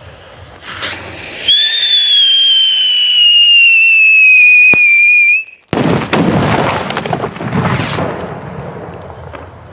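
Whistle firework going off. One loud continuous whistle starts about a second and a half in and slides slowly down in pitch for about four seconds before cutting off. Dense crackling and hissing follow for a few seconds and fade out.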